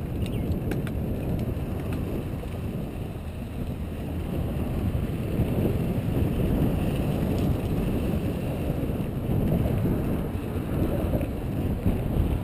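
Wind rumbling on the microphone of a camera riding on a Santa Cruz Tallboy LT mountain bike, over the steady rumble of its tyres rolling on a dirt trail.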